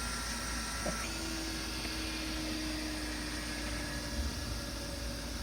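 Steady background hiss and low hum with a few faint steady tones and no distinct event.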